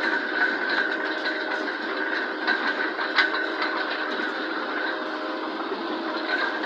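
Self-propelled sugar beet cleaner-loader working a beet clamp: its engine and cleaning rollers run steadily under a continuous rattle of beets tumbling over the pickup table and conveyors, with scattered knocks, the sharpest about three seconds in.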